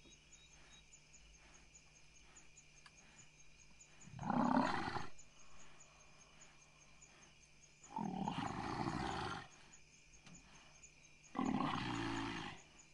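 African buffalo bull bellowing three times, each call about a second long and a few seconds apart: distress calls of a dying bull whose muzzle a lioness is clamping to suffocate it, while its free lower jaw still lets it breathe and call. Faint cricket chirping underneath.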